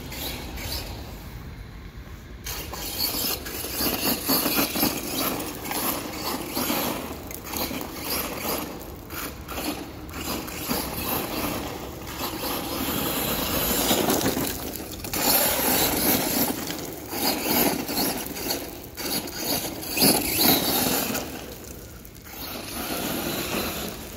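Redcat Volcano EPX RC truck with a 3500KV brushless motor on 3S being driven hard over loose dirt and gravel: tyres scraping and spitting gravel as the truck speeds up and slows, in uneven loud surges.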